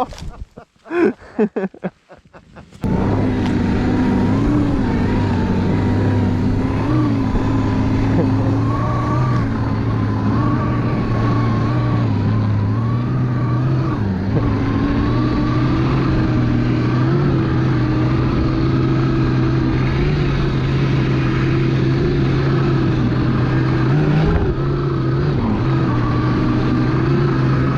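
Electric snowbike with a track snow kit running under load through deep snow: a steady motor and track-drive hum that wavers slightly in pitch. It sets in about three seconds in, after a short choppy stretch.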